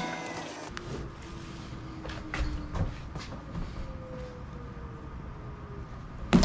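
Background music cuts off under a second in. After that come faint handling noises: scattered knocks and clicks of hands and tools working a rubber windshield seal, with a sharp knock at the very end.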